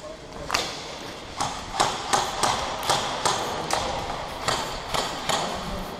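Quick footsteps on a gritty concrete floor, a string of sharp steps about two to three a second that stop near the end.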